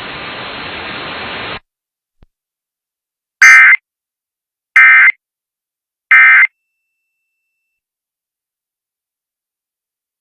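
Emergency Alert System end-of-message data bursts: three short, loud, buzzy digital bursts about a second and a half apart, the coded signal that marks the end of an EAS alert. Before them, a steady radio hiss cuts off about a second and a half in.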